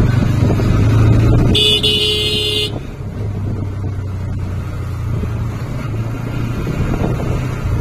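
Motorcycle engine running steadily under way, with wind on the microphone. A little over a second and a half in, a horn beeps once for about a second.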